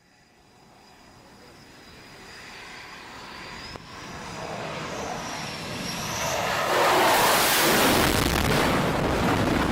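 Twin jet engines of a U.S. Navy F/A-18 approaching to land: a broad rush of engine noise that builds steadily from near silence to loud about seven seconds in, with a high whine that bends in pitch midway.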